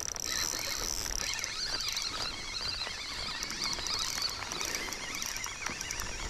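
Steady rain pattering on the lake surface, a dense fizz of small drops.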